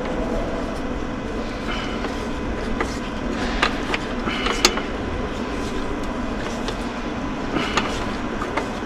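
Scattered metallic clicks and clinks of hand tools working on the tight mounting bolts of a bus engine's air compressor, over a steady background noise.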